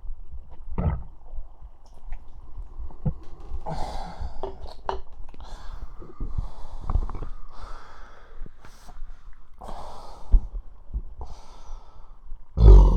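Stomach gurgling and rumbling close up, from a belly full of soda, in short irregular gurgles and low thuds. Several breaths are mixed in, and a loud low burst comes near the end.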